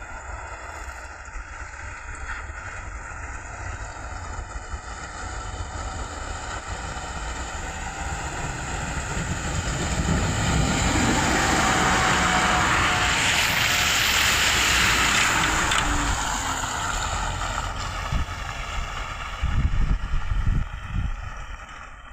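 A vehicle engine running steadily, growing louder toward the middle and then fading away, with wind on the microphone.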